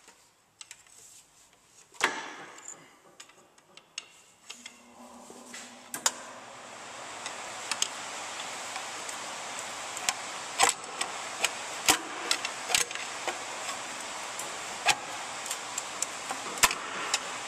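Steel pry bar and screwdriver clinking and knocking against the inner CV joint and transaxle case as the Toyota Tercel's drive axle is pried against its retaining C-clip: irregular sharp metal clicks. From about six seconds in they sit over a steady hiss.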